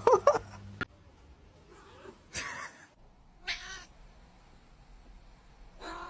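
Domestic cat meowing several times, the first meow at the start the loudest and a few fainter ones following at intervals of about a second.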